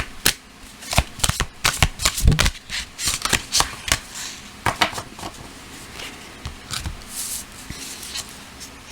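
A deck of tarot cards being shuffled by hand: a quick run of card snaps and rustles that thins out to a few softer ones about halfway through.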